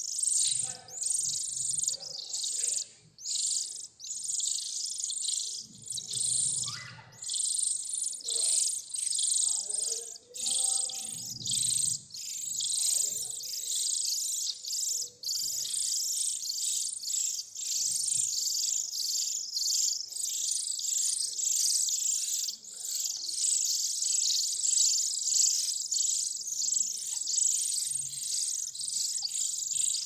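A brood of nestling birds giving constant high-pitched begging chirps, many a second, while being hand-fed from a syringe.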